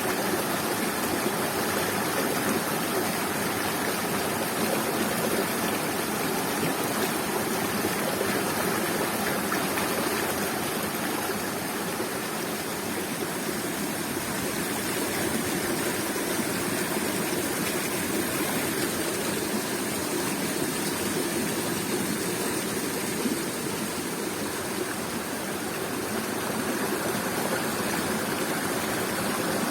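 Waterfall: water pouring and rushing steadily in an even, unbroken roar of white noise.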